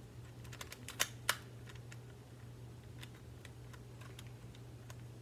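Plastic twisty puzzle cube being turned by hand: a scattered run of clicks and clacks as the layers turn, with two louder clacks about a second in. A steady low hum sits underneath.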